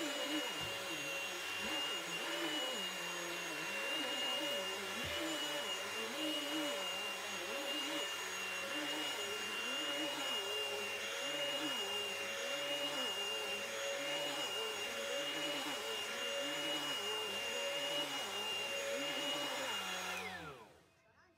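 Upright vacuum cleaner running with a steady high whine over a mattress top, its lower sound swelling and easing in a regular rhythm as it is pushed back and forth. Near the end it is switched off and the whine falls away as the motor winds down.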